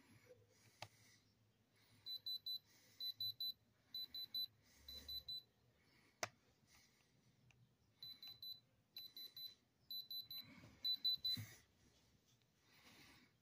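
Handheld electronic detector with an LED bar graph beeping as it is held against a rock: high, quick beeps in threes, about once a second, in two runs of four groups. A single sharp click falls between the runs.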